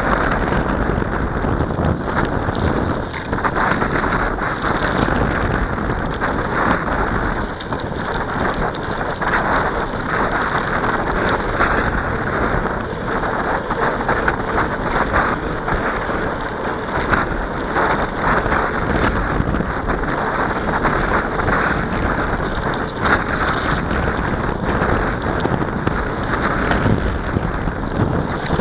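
Wind rushing over the microphone of a camera carried on a moving bicycle: a loud, steady rumble with frequent short knocks and rattles.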